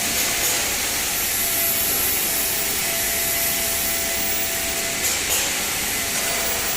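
Steady hiss of running workshop machinery, with a faint steady hum and a couple of light ticks about five seconds in.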